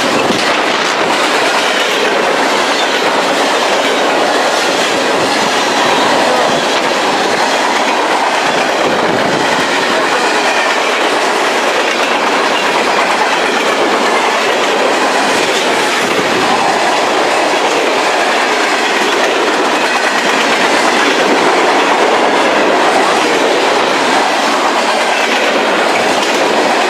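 Freight cars of a fast-moving mixed-freight train rolling past close by: a steady loud rush of wheel and rail noise, with wheels clacking over the rail joints.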